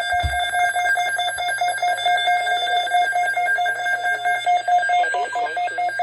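Emergency alert attention tone: a loud electronic alarm tone pulsing rapidly and evenly, with a low thump right at the start. A voice begins under the tone near the end.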